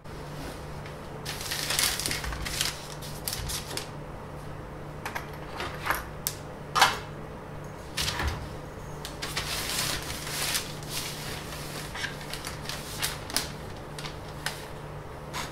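Drawing tools worked on a large sheet of paper on a tabletop: compass and pencil scratching, paper shifting, and a long steel ruler picked up and laid down. The handling makes an irregular string of clicks and taps, the sharpest about seven seconds in, over a steady low hum.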